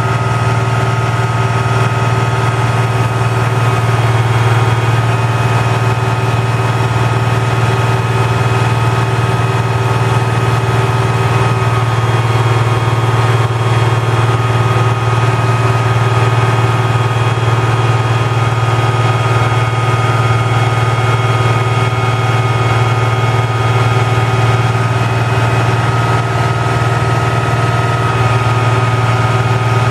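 The 1988 Ford L9000's Cummins N14 diesel engine runs steadily at an even, idle-like speed, with a steady high-pitched whine over it, while it powers the truck's hydraulic boom as it is raised and extended.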